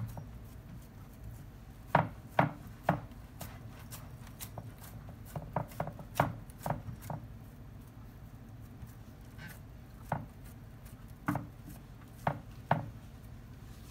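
Metal pizza pan knocking and tapping as hands press and stretch dough out across it: scattered sharp taps in small clusters over a faint steady background.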